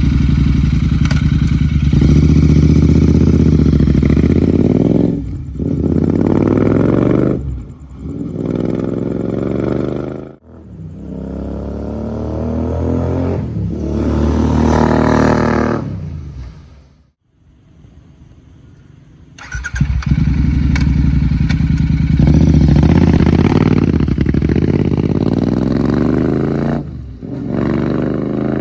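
Royal Enfield Interceptor 650 parallel-twin engine running through an aftermarket Hunter exhaust, revved up and down repeatedly. A long rising rev in the middle drops off sharply, the engine goes quieter for a couple of seconds, then is loud again near the end.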